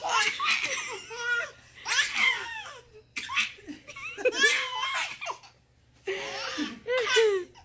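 Twin babies laughing in repeated bursts, with a short lull a little after halfway.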